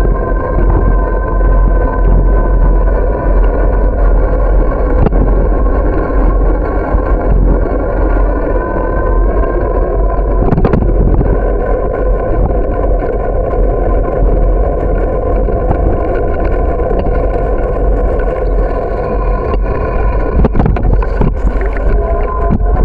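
Bicycle rolling along a paved path: wind buffeting the microphone, with a steady hum from the moving bike that drifts slightly in pitch, and a few knocks, mostly near the end, as the wheels run over bumps and sidewalk joints.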